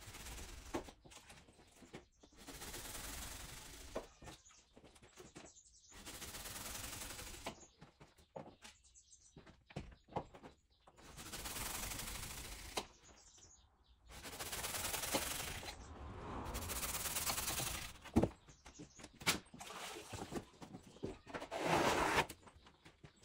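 Plaster being worked along a long molding mould: about six separate scraping strokes, each a second or two long, with sharp clicks and knocks of the tools between them.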